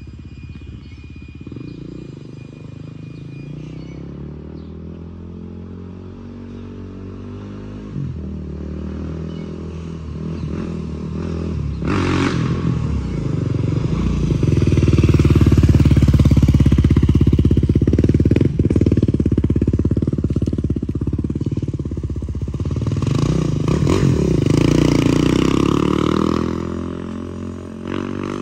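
Beta 500 RR-S dirt bike's four-stroke single-cylinder engine, fitted with an FMF exhaust, riding along the street. It grows louder as the bike approaches and is loudest about halfway through. It eases off, swells again, then fades near the end, its pitch rising and falling with the throttle.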